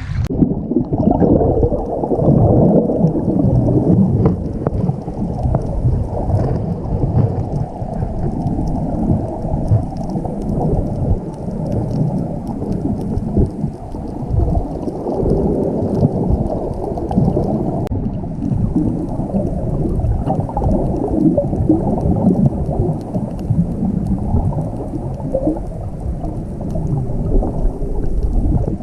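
Muffled rumbling and sloshing of water with occasional gurgles, heard by a microphone under the water's surface, the sound of a camera submerged.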